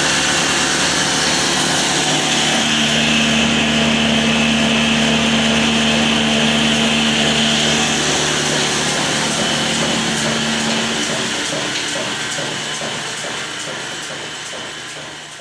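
Flour mill (atta chakki) running steadily, driven by an old black diesel engine, as grain feeds through it, making a loud, continuous mechanical whine and hum. The noise fades away gradually over the second half.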